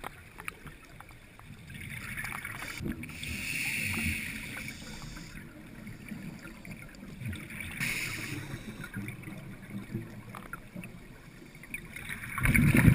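Scuba diver breathing through a regulator: hissing inhalations every few seconds, with a loud low gurgle of exhaled bubbles near the end.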